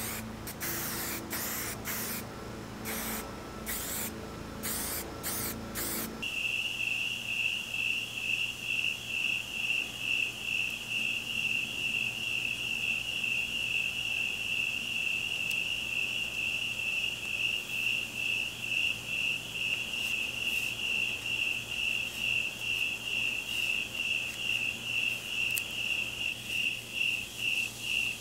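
Aerosol spray paint can hissing in several short bursts during the first six seconds. Then a cricket chirping in a steady, even rhythm of a few chirps a second.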